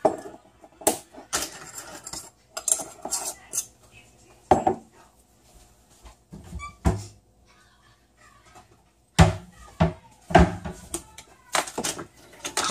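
Kitchen handling noise as spices are measured: a measuring spoon clinking in a glass spice jar, and jars and a salt container set down on the countertop. It comes as a series of sharp clinks and knocks in clusters, with short quiet gaps between.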